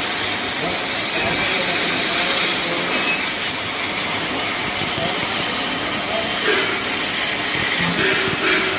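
CNC plasma cutter torch cutting metal: a loud, steady hiss, with faint steady tones joining in near the end.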